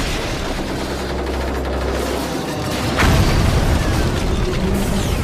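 Cartoon action sound effects over music: a low rumble that cuts off about two and a half seconds in, then a loud boom about three seconds in.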